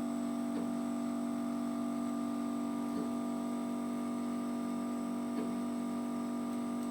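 Steady electrical hum of a CO2 laser engraver running, several fixed tones held evenly, with faint short blips about every two and a half seconds.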